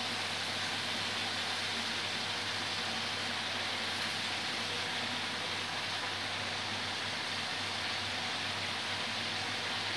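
Steady frying sizzle from a kadai as freshly added pumpkin leaves and stalks cook in hot oil over the spiced vegetables.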